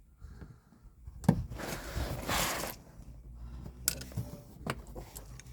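Handling and fastening a car trim panel: a sharp click about a second in, then about a second of scraping, and two more clicks later as its twist fasteners are turned home.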